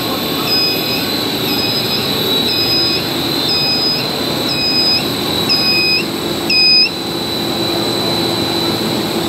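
Electronic warning beeper sounding about once a second, each beep about half a second long, until it stops about seven seconds in. Under it runs the steady hum and high whine of running machinery.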